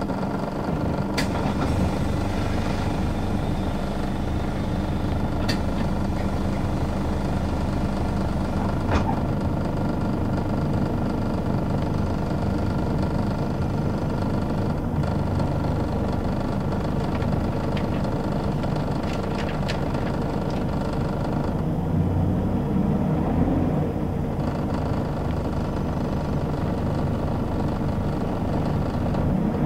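Scania L94UB city bus's diesel engine running steadily as it drives slowly, heard from inside the passenger cabin, with a few sharp clicks of interior rattle.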